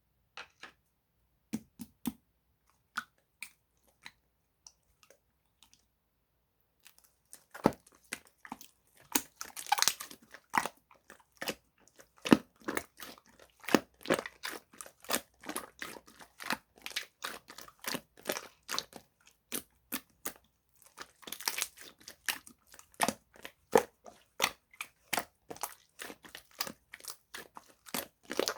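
Slime being kneaded and mixed with whipped-cream clay by hand, making sticky clicks and pops. A few scattered clicks at first, then a dense run of rapid clicking from about seven seconds in.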